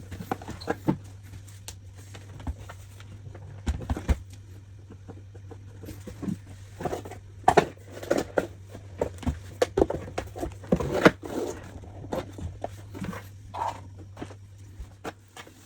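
Irregular short clicks and knocks over a steady low hum, thickest in the middle.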